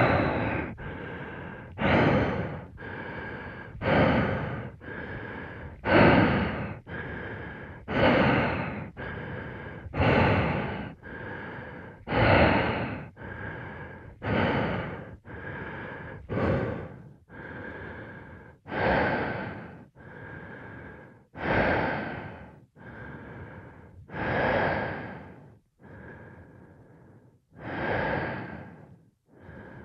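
A person breathing in and out through breathing gear, a sci-fi space or underwater breathing sound effect. About one breath a second, louder and softer breaths alternating, slowing in the second half. A faint whistling tone runs through each breath.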